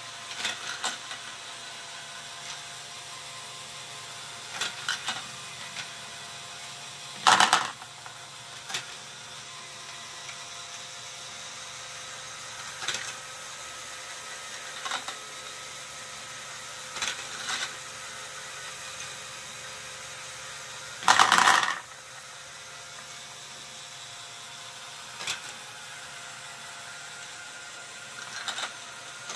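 A motorised LEGO Technic scissor lift running, with a steady gear whir and scattered clicking of plastic balls. Twice, about seven and twenty-one seconds in, there is a loud half-second clatter as a batch of balls tips off into the plastic tub.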